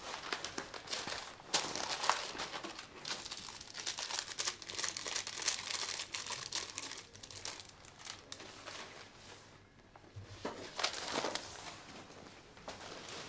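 Newspaper rustling and crinkling as it is handled and folded, a dense crackle for most of the first eight seconds, easing off, then flaring again briefly near the end.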